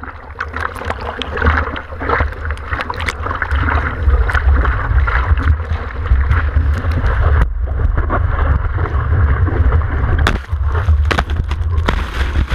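Sea water rushing and splashing around a surfboard-mounted camera as the surfer paddles through whitewater, with a heavy low rumble of water buffeting the microphone and many sharp splashes. The sound turns duller about halfway through.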